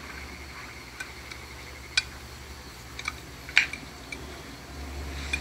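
Dishes and cutlery clinking: five or six light, sharp clinks at uneven intervals, the loudest about three and a half seconds in, over a low steady hum.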